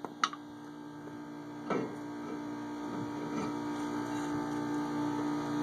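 A loosened cast-iron front brake rotor from a 2005 Nissan Frontier being slid off the hub's wheel studs: a sharp metal clink about a quarter of a second in, then a duller knock near two seconds and a few faint knocks, over a steady low hum.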